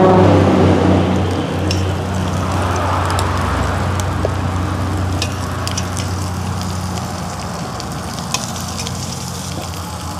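Shrimp sizzling as they fry and brown in a hot pot, with a few light clicks of a utensil against the pot.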